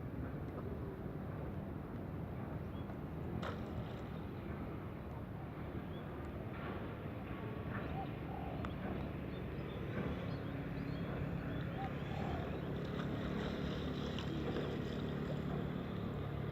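Steady low rumble of wind with a faint motor hum underneath, a little stronger in the second half, and a few faint short chirps and ticks.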